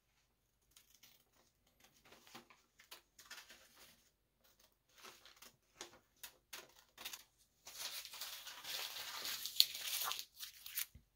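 Scissors snipping through a paper template, with paper rustling between cuts. About eight seconds in comes a louder stretch of about two seconds of paper crinkling as the scraps are handled.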